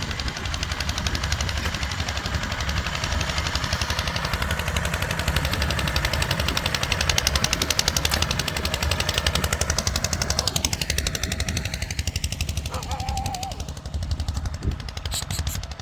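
Tractor's diesel engine running hard under load, with a rapid, even exhaust beat. Its tone sweeps down and back up about ten seconds in.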